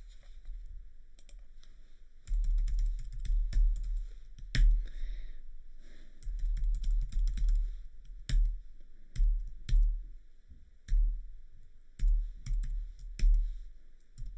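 Typing on a computer keyboard, entering a web address: irregular keystrokes, some single and some in quick runs, with a dull thud to many of them.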